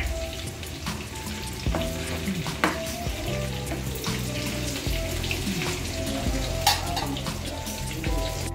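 Food sizzling as it fries in oil in a nonstick pan, with scattered clicks and scrapes from a metal slotted spoon stirring and turning it. Background music plays along.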